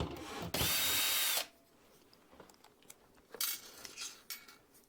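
Power drill running in one short burst of about a second, spinning up and winding down, followed by a few faint handling clicks.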